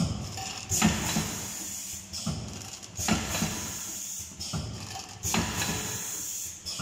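Liquid pouch packing machine running in its cycle. Three times, roughly every two and a quarter seconds, comes a sudden clack with a burst of hiss, each followed by a quieter mechanical run that fades before the next stroke.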